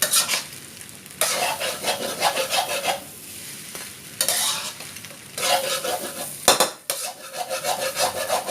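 Seafood fried rice being stir-fried in a hot pan: a spatula scrapes and turns it in about five runs of one to two seconds each, over a steady sizzle.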